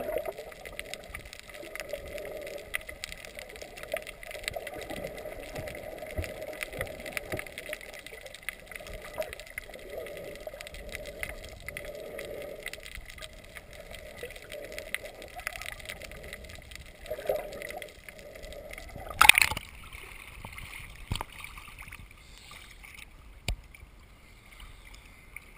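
Muffled underwater sound recorded through a GoPro's waterproof housing: a steady low wash of water with scattered clicks. About 19 seconds in there is a loud splash as the camera breaks the surface, followed by quieter sloshing of the water surface.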